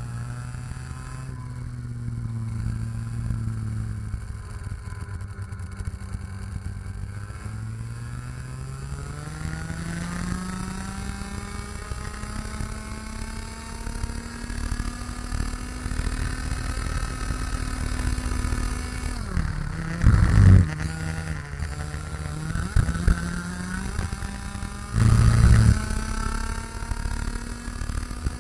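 IAME X30 125cc two-stroke kart engine heard onboard at racing speed. Its pitch holds low and steady for the first several seconds, climbs sharply as the kart accelerates, then stays high with small rises and falls, dipping briefly about two-thirds through. Two short, loud bursts of noise cut across it, about twenty and twenty-five seconds in.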